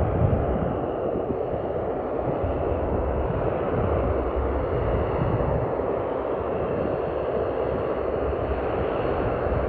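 De Havilland Canada Dash 8-400's twin turboprop engines running with a steady sound, with low rumbling that comes and goes underneath.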